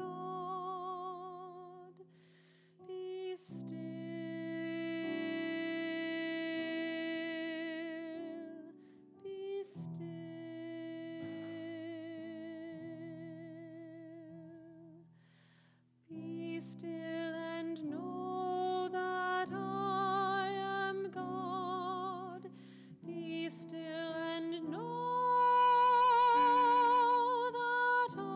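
Taizé chant sung slowly by several voices in harmony, held notes with vibrato, in phrases separated by short breaks; the last phrase, about 25 seconds in, is the loudest.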